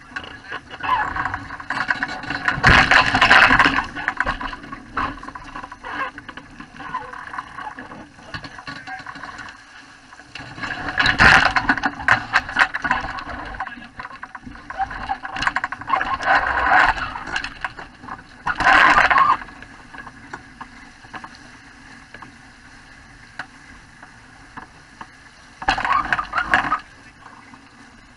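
Water rushing and splashing along the hull of a Wayfarer sailing dinghy under way, coming in several loud surges of a second or two as the bow meets the waves.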